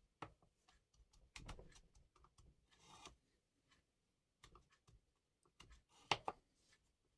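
Faint, irregular clicks and taps with a couple of short scrapes, as a knife and whetstones are handled on a bench. The loudest taps come about six seconds in.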